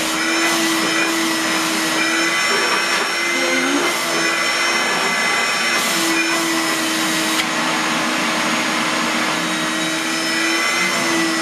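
Canister vacuum cleaner running steadily, its hose nozzle drawn over a cat's fur. The steady hum breaks off briefly a few times.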